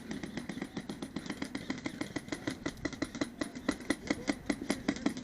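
Airsoft guns firing in a long run of sharp, rattling clicks, about ten shots a second.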